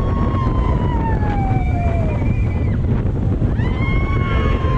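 Wind buffeting the microphone on a moving roller coaster, a steady low rush. Over it, riders give long high cries that slide down in pitch, one at the start and another near the end.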